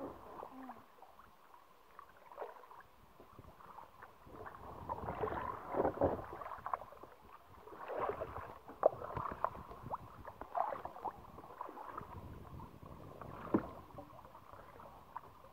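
Kayak paddles dipping and pulling through river water, with splashes and drips coming in uneven swells and a few sharp knocks.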